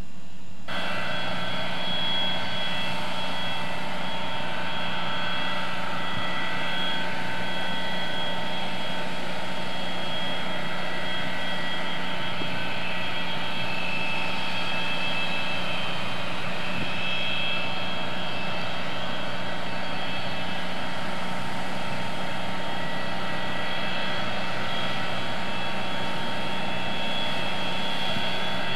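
Jet aircraft engines running at idle: a steady whine of several held tones over a low hum, starting abruptly just under a second in.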